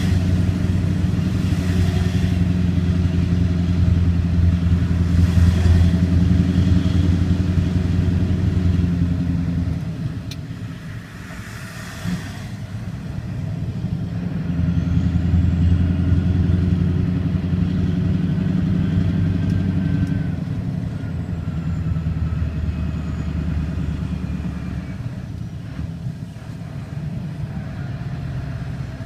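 A road vehicle's engine running steadily while driving, heard from inside the cab. About a third of the way in the engine note falls away as the throttle comes off, then builds again around the middle and eases near the end. There are a few short rushes of wind or road noise in the first half.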